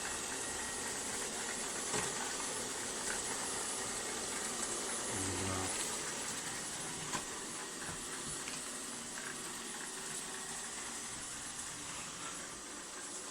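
ILIFE V50 Pro robot vacuum running: a steady whirring hiss with a thin high whine, and a few light knocks and clicks as it works across the floor.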